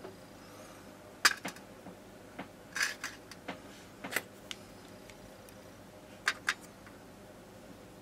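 Small metal lighter parts clicking and tapping against a metal tray as they are handled and set down: a handful of sharp clicks, a short scrape about three seconds in, and two quick clicks near the end.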